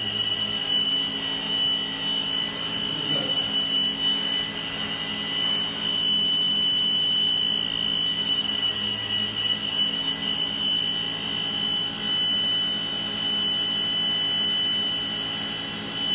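Circular saw's electric motor running steadily, a constant high whine over a steady low hum.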